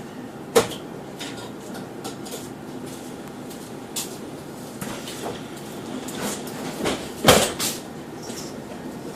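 Ride inside a Connexxion bus: steady running hum with sharp knocks and rattles. The loudest knock comes about half a second in, and a cluster of clatters follows near the end.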